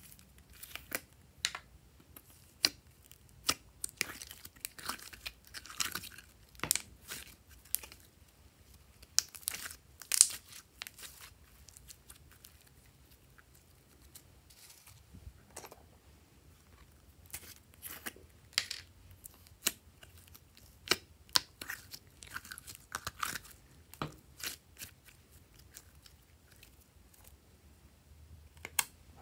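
Glossy slime being squeezed and pressed by hand, making irregular sticky clicks and small crackling pops, with a couple of quieter pauses.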